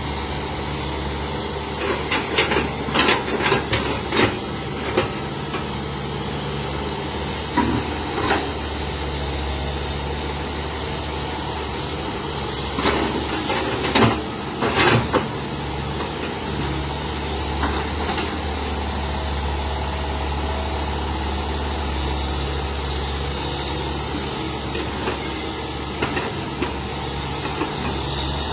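Hitachi EX110 excavator's diesel engine running steadily with a deep hum. Clusters of sharp knocks and clanks come from the machine working in the first half.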